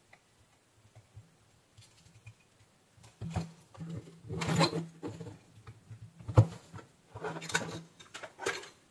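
Handling noise from a switch-mode power supply circuit board as a replacement electrolytic capacitor is fitted and the board is turned over: a few short scraping rustles and one sharp knock about six seconds in.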